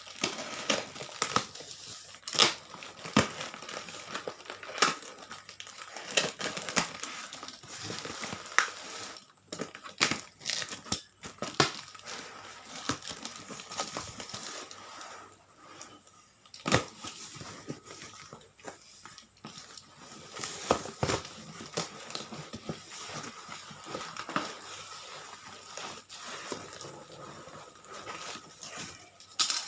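Packaging being unwrapped by hand from a laptop, with irregular sharp crackles and clicks throughout.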